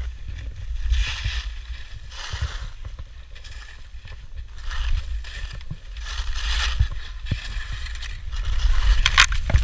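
Skis hissing and scraping through snow in a series of turns, a swell of hiss every second or so, the strongest near the end, over a low steady rumble.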